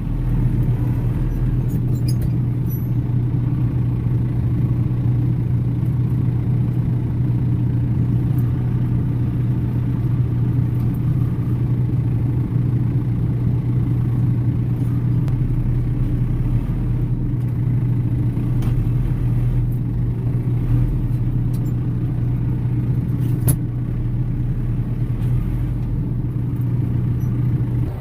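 A vehicle engine running steadily at constant speed: a low, even drone that starts abruptly and holds the same pitch throughout, with a few faint clicks.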